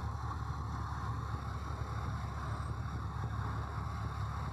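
Small Cessna's piston engine running steadily at low taxi power, heard from inside the cabin as an even low drone.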